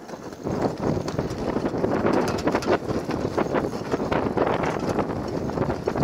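Sailboat under way in strong wind: rushing wind and water noise, with rapid irregular knocks and crackles throughout.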